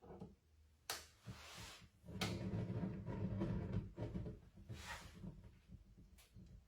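Faint knocks and scraping of objects being handled in a small room, two sharper knocks near the start followed by a low rumbling stretch.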